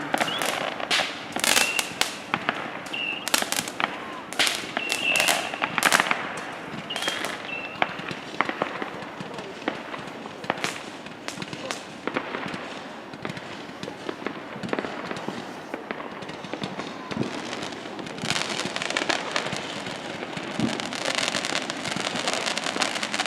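Consumer fireworks and firecrackers going off: a rapid run of sharp bangs and pops in the first several seconds, then fewer, scattered pops, with a steady hiss near the end.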